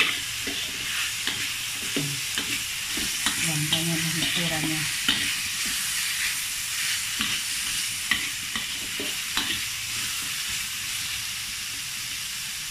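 Sliced vegetables stir-frying in a hot wok: a steady sizzle, with the metal spatula scraping and clicking against the pan many times as it stirs.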